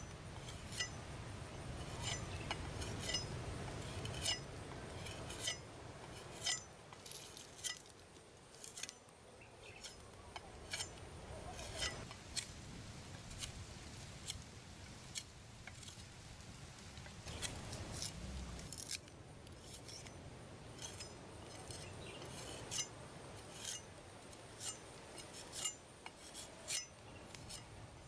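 Large knife blade cutting the bark off a coconut palm trunk, making a series of short, sharp cuts and scrapes, roughly one or two a second.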